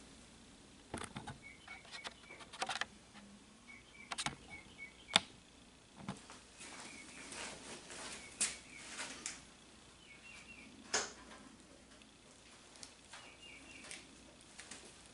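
Scattered clicks and knocks of hard plastic parts being handled as a dust shroud fitted with a brush strip is mounted on a Festool Kapex miter saw. One sharp click about five seconds in and a knock about eleven seconds in stand out.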